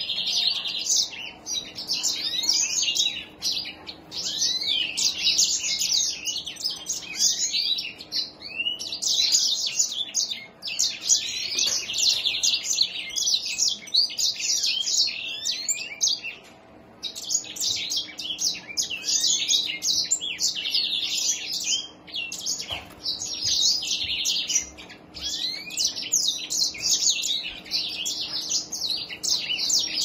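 Caged grey singing finch (gray singer) singing a long, rapid, varied song of high twittering notes and buzzy trills, broken by a few short pauses.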